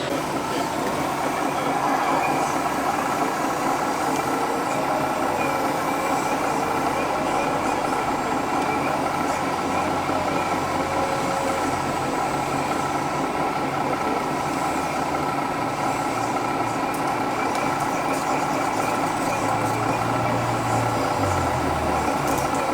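Radio-controlled scale construction vehicles running: a steady engine-like drone with a fainter whine that wavers up and down in pitch.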